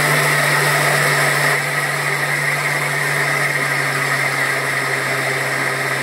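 Electric mixer grinder (mixie) running steadily under load, its stainless-steel jar grinding soaked rice into a thick batter, with an even motor hum. The level dips slightly about a second and a half in.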